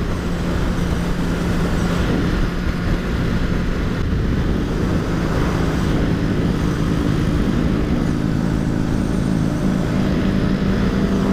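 Honda CBR1000RR's inline-four engine running steadily at highway cruising speed, heard from the bike itself over loud wind and road rush. About halfway through, further steady engine tones join in.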